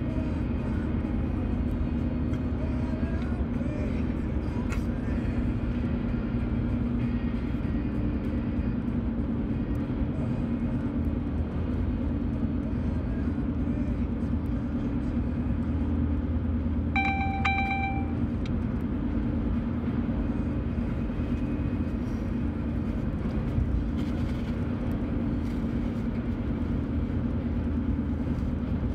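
Steady road and engine noise inside a car cruising at highway speed. About two-thirds of the way in, a single flat beep sounds for about a second.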